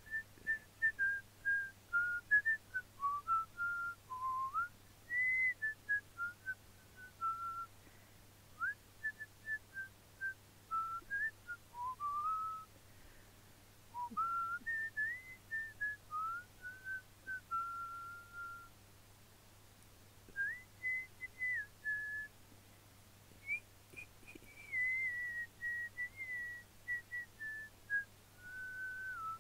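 A person whistling a wandering tune, one clear note at a time in short phrases with brief pauses, over a faint steady low hum.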